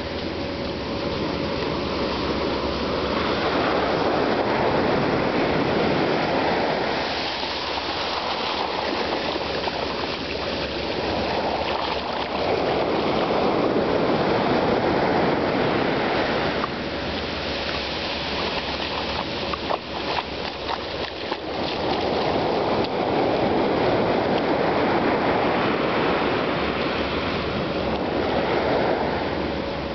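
Ocean surf washing up the beach: a steady rush of water that swells and ebbs about every ten seconds as each wave comes in and draws back.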